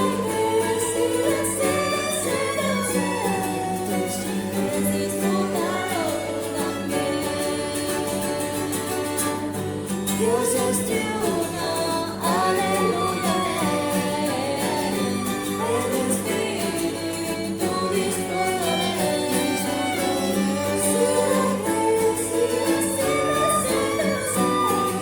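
A recorded hymn: a group of voices singing a melody over an instrumental accompaniment with strings.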